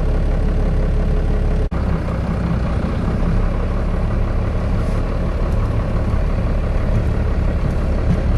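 Vehicle engine running steadily at a low drone, with a sudden brief dropout just under two seconds in.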